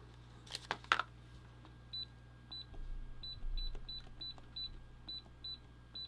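Keypad of a Zowill fingerprint keypad deadbolt beeping once for each button pressed as a code is entered: about ten short high beeps in quick succession, starting about two seconds in, after a couple of faint clicks.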